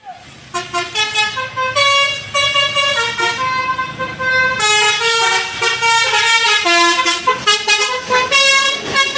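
Basuri telolet bus horn playing a melody: a loud run of horn notes that step from pitch to pitch several times a second.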